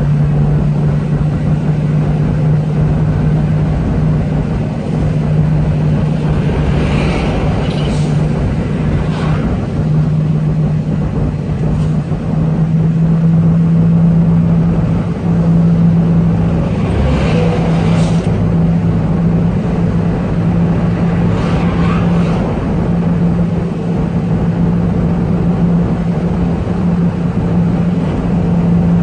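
Heavy diesel truck engine heard from inside the cab, running steadily on a long mountain descent, with its turbo audible. A few brief hissing whooshes rise over it several times.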